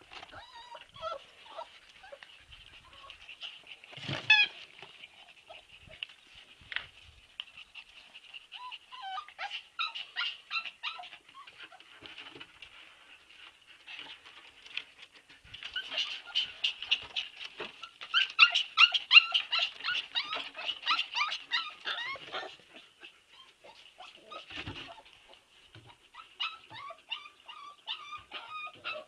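Siberian husky puppies playing and vocalising in short high-pitched yips and whines, with one sharp louder yelp about four seconds in and a rapid, busier run of yips from the middle onward.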